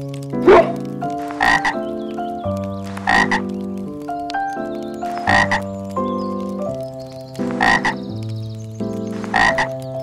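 A frog croaking in short single calls, five in all, about every two seconds, over soft piano music. A dog gives one bark right at the start.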